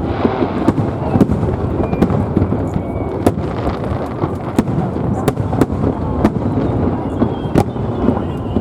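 A fireworks display going off without pause: many sharp cracks of bursting shells over a constant low rumble of booms.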